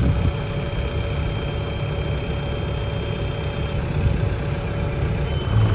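Case 590 Super N backhoe's diesel engine idling steadily.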